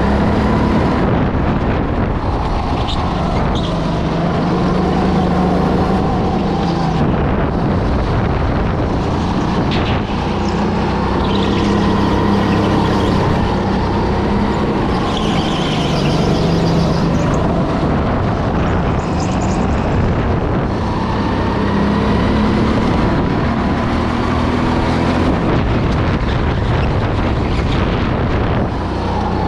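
Go-kart engine running hard through a lap, its pitch falling and rising again and again as the kart slows for corners and accelerates out of them.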